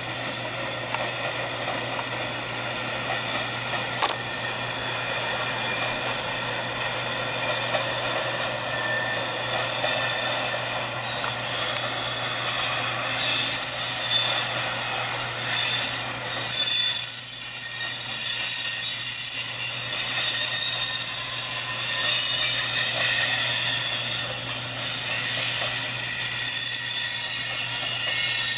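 Freight cars of a mixed freight train rolling slowly past as the train enters the yard, wheels squealing on the rails in several high, steady tones that get louder about halfway through.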